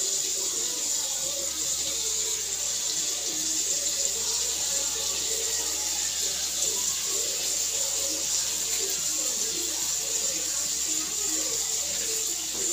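Oil sizzling steadily in a non-stick frying pan of diced food being fried.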